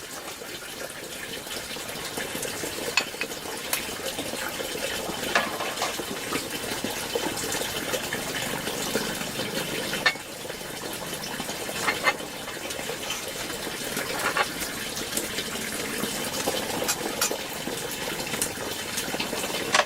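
Steady noise like running or pouring water, with scattered sharp clinks of dishes and utensils being handled.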